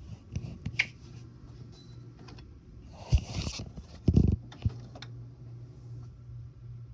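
Inkjet all-in-one printer working: its mechanism clicks and knocks, gives a short whirr about three seconds in and a few heavy clunks just after four seconds, then settles into a steady low motor hum.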